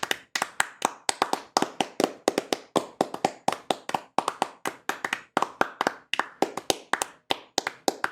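One person clapping hands steadily, about four sharp claps a second.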